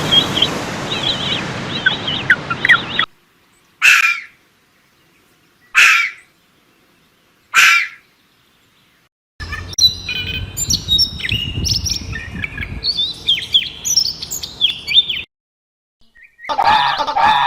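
Birds chirping in a string of short clips. Quick chirps over a noisy background stop suddenly, then three single short calls come about two seconds apart, then several seconds of busy chirping and twittering. A different, steadier pitched call starts near the end.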